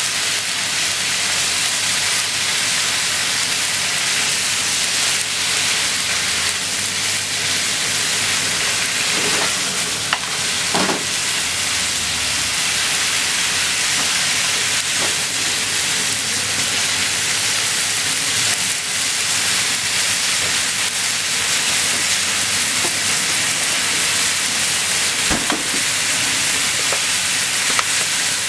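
Pork, cabbage and bean sprouts sizzling steadily in a frying pan as they are stir-fried, with a few light clicks scattered through.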